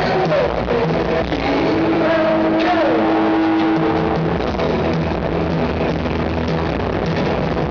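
Live rock band playing loudly through a venue PA, heard from within the audience, with sliding, held pitched notes in the first few seconds over a steady low bass.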